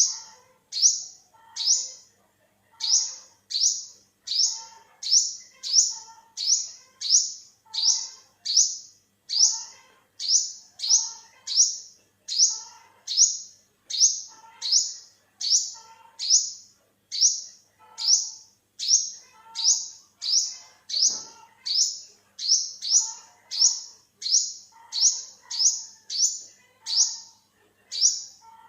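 Olive-backed sunbird calling: a steady series of short, high, down-slurred chirps, about three every two seconds and often in pairs.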